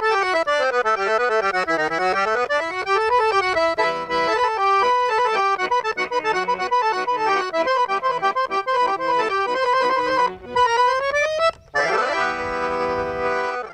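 Accordion played solo in fast runs of notes that sweep down and back up, with two short breaks near the end, then a final held chord that cuts off.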